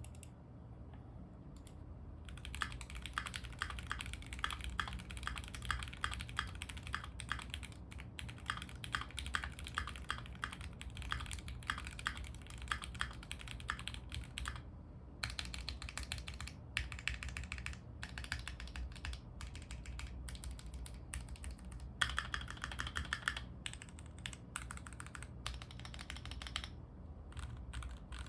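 Typing on a stock, unmodded Keychron Q2 65% mechanical keyboard: rapid key clicks and clacks starting a couple of seconds in, with a few short pauses and a quicker run of keystrokes near the end. A low steady hum runs underneath.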